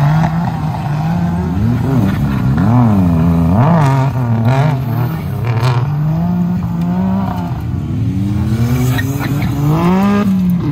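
Suzuki Jimny off-road trial cars' engines revving as they drive up a dirt hill-climb section. The pitch rises and falls again and again as the throttle is blipped, with a sharp rise and fall near the end.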